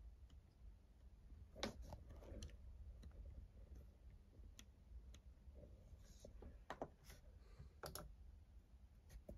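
Faint light taps and clicks, about a dozen scattered unevenly, from a finger repeatedly resting on and lifting off the Touch ID key of an Apple Magic Keyboard during fingerprint enrollment.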